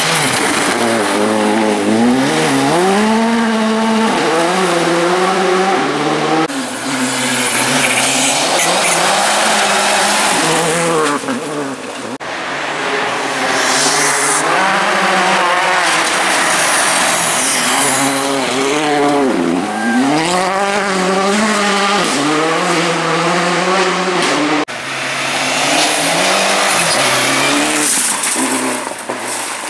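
Rally cars passing one after another at speed on a gravel stage: a Škoda Fabia first and a Mitsubishi Lancer Evolution near the end. Their turbocharged four-cylinder engines rev hard, then drop sharply on gear changes and lifts, over a loud hiss of gravel and tyres. The sound cuts abruptly between cars several times.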